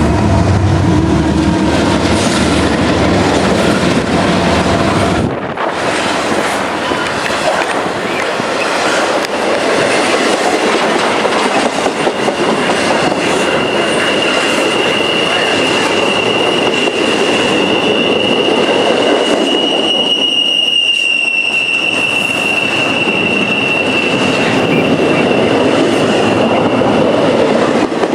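Freight train cars rolling past at close range, a steady rushing rumble with wheels clacking over the rails. From about halfway through, a steady high-pitched wheel squeal rides over it.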